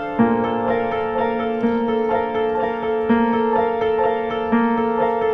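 Background music led by piano, with sustained notes in a repeating pattern over a low note struck about every second and a half.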